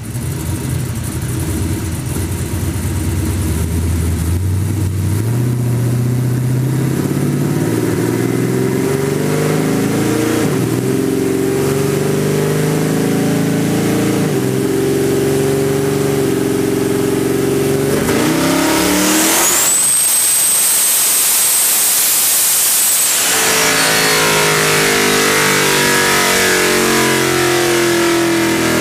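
Twin-turbo 427 cubic-inch LSX V8 running hard on a chassis dyno, heard close to its two 78 mm Turbonetics turbochargers. The engine note climbs in several stages over most of the run. Near the end, for about four seconds, a loud turbo intake rush with a high steady whistle takes over. Then the engine note falls away.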